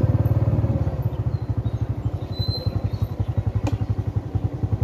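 A small engine running steadily with a fast, even putter. It eases off a little after about a second, and there is a sharp click near the end.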